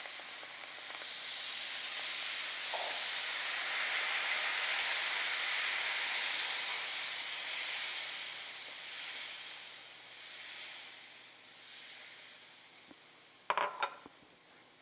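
Chicken stock poured into a hot skillet of butter-and-flour roux with capers, sizzling and hissing as the liquid hits the pan and is stirred in. The sizzle swells over the first few seconds and then fades away as the stock takes up the heat.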